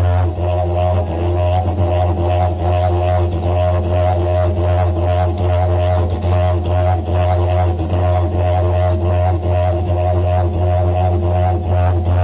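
Didgeridoo playing a steady low drone, its overtones shifting as the player shapes the sound, with a fast even pulse running through it.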